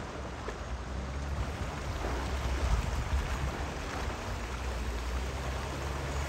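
INEOS Grenadier's engine running steadily at low revs as it crawls through a muddy water crossing, with water sloshing and splashing around its tyres.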